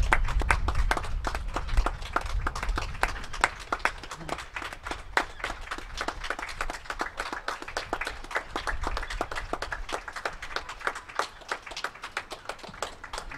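Several people clapping their hands, with many irregular, overlapping claps in a steady round of applause.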